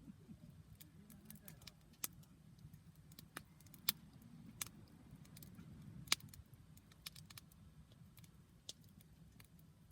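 Wood campfire crackling: scattered, irregular sharp pops and snaps over a low steady rumble, with the loudest snaps about four and six seconds in.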